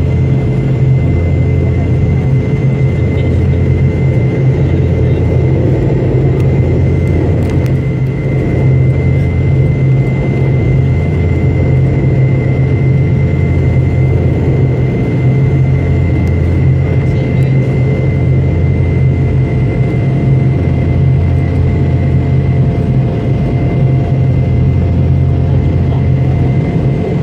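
Cabin noise of a Boeing 717 climbing out: a steady loud rumble of airflow and the tail-mounted Rolls-Royce BR715 turbofans that swells and eases every few seconds, with a thin steady whine above it.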